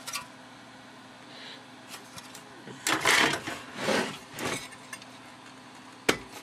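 Plug-in circuit boards being handled in a metal card cage, with a click at the start, two longer scraping rattles about three and four seconds in, and a sharp click near the end.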